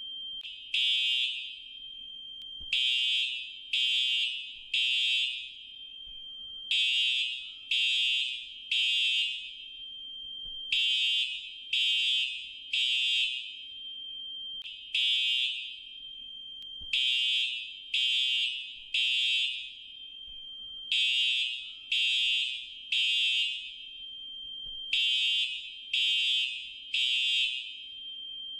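Fire alarm sounding high-pitched electronic beeps, mostly in groups of three about a second apart with a short pause between groups: the temporal-three evacuation signal.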